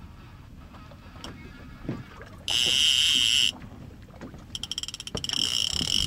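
Fishing reel's drag buzzing for about a second as a hooked striped bass pulls line off the spool. Near the end the reel gives a longer stretch of rapid clicking that builds into the same buzz. Wind and water rumble underneath.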